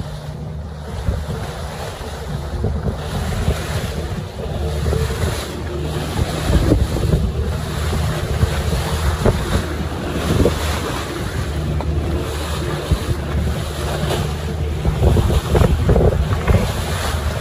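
A boat's engine runs steadily under way with a low hum, with wind buffeting the microphone and water rushing and slapping against the hull. Louder surges of splash and spray come and go, most often in the second half.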